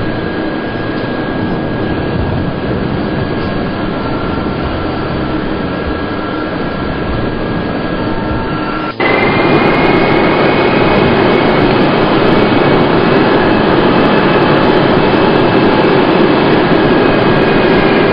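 Airbus A330 airliner's jet engines running, a steady rush with a high whine, heard across the airfield. About nine seconds in the sound cuts abruptly to a louder, higher-pitched whine.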